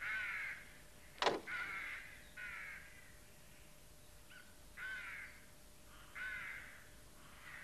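Crows cawing: about half a dozen short, harsh caws spread over several seconds. A single sharp knock comes about a second in.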